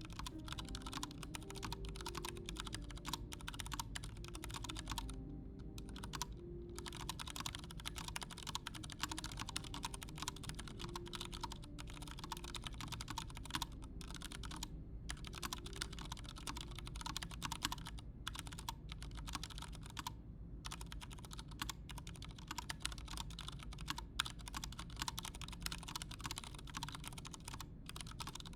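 Fast, continuous typing on a Vortex Race 3 mechanical keyboard with Cherry MX Brown tactile switches and PBT double-shot keycaps, with a few brief pauses. Underneath, a Voron Zero 3D printer's stepper motors hum in short, shifting tones as it moves.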